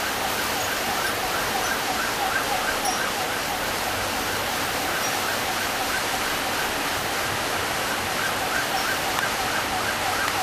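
Heavy rain pouring down in a steady hiss, with a siren wailing in a fast rise-and-fall, about three cycles a second.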